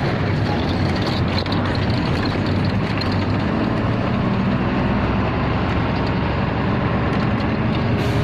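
Truck's diesel engine running steadily while driving, with road noise, heard from inside the cab.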